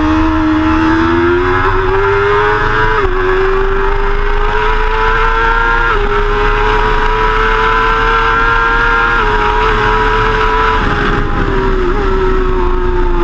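BMW S1000RR's inline-four engine running hard at high revs. Its pitch climbs slowly, dips briefly about every three seconds, and falls gently near the end.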